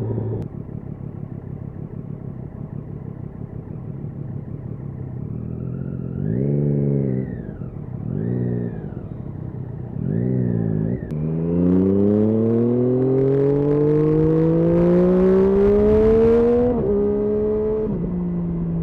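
Triumph Daytona 675's inline-three engine running at low revs, then three short rises and falls in revs, then a long pull with the pitch climbing for about five seconds before a sudden drop at a gear change, after which it runs steady.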